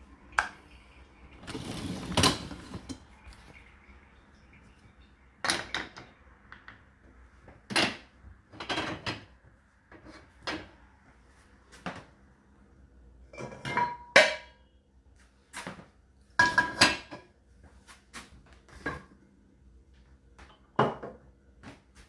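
Dishes and glasses clinking and knocking against the wire racks of an open dishwasher as they are handled: irregular separate knocks, a few ringing briefly, and a longer scrape about two seconds in.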